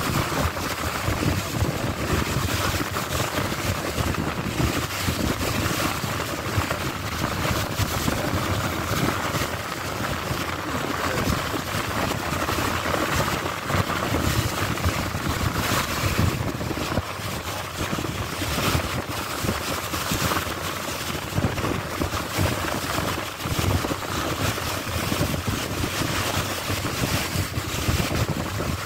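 Steady wind and water noise aboard a moving boat: wind buffeting the microphone and water washing past the hull, over the low rumble of the boat's engine.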